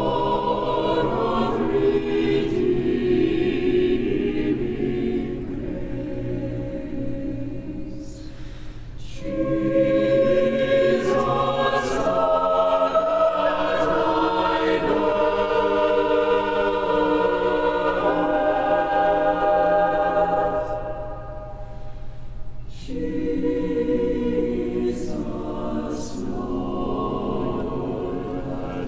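Choir singing held, many-voiced chords, the sound falling away briefly about eight seconds in and again about twenty-one seconds in before the voices swell back.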